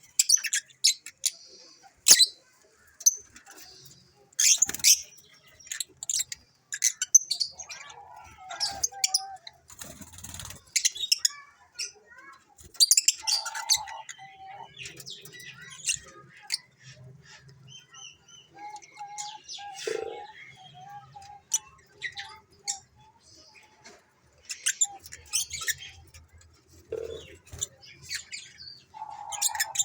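African lovebirds chirping: many short, shrill high-pitched chirps and squeaks in irregular bursts.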